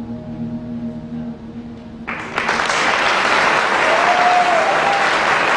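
The last held notes of the performance music die away, then about two seconds in an audience breaks into loud, sustained applause.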